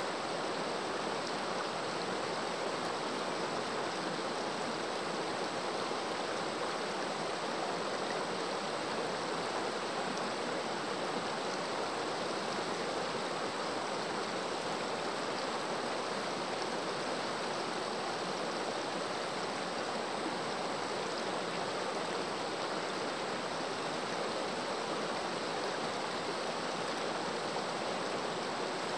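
A shallow, rocky river flowing over and between boulders: a steady, even sound of running water.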